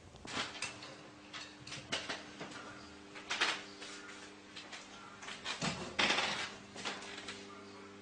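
Scattered scuffs, clicks and light knocks of a cat and an African grey parrot moving about on the top of a wooden wardrobe, with a louder rustle about six seconds in. A steady low hum runs under it.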